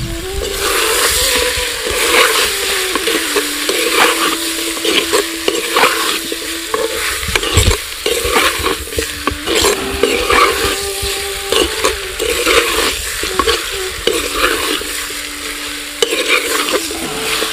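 Chicken pieces sizzling as they fry in a clay pot over a wood fire, with a metal spoon stirring and scraping against the pot in irregular strokes.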